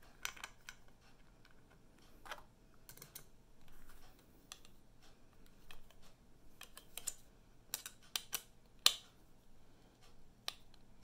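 Scattered light clicks and knocks as thin wooden frame strips are handled on a table and a Phillips screwdriver backs a small screw out of one strip. The sharpest click comes about nine seconds in.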